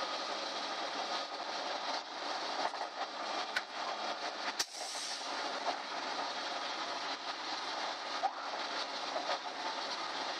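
Cabin noise inside a moving school bus: steady road and engine noise with the body and fittings rattling, and a sharp knock about four and a half seconds in.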